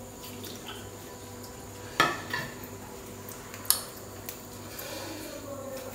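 Light household clatter over a low steady hum: a sharp knock about two seconds in that rings briefly, and a single sharp click just before four seconds.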